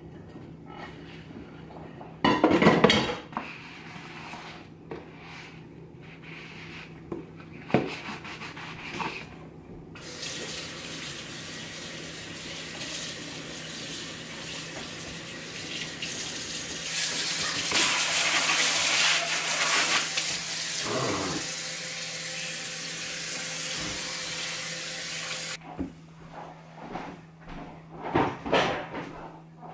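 Dishes being washed by hand in a kitchen sink: plastic plates clatter and knock against the sink. About ten seconds in the faucet is turned on and runs for about fifteen seconds while a plate is rinsed under it, the splashing loudest midway. After the faucet is shut off there is more clatter of dishes near the end.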